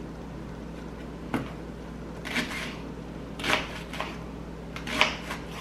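Knife cutting through a sweet onion on a wooden cutting board: a handful of irregular slicing knocks and crunches of the blade reaching the board.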